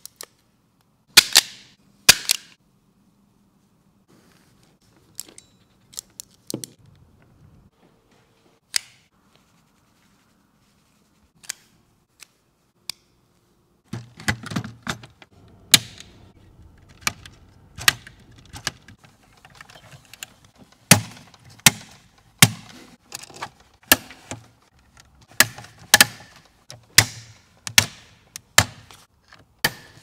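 Sharp clicks and snaps of hand tools and panel fittings. Two loud clicks of a Wiha ferrule crimping tool come near the start, then a few scattered clicks. From about halfway a quick, irregular run of clicks and knocks follows as wires go into the panel's lever connectors and screw terminals.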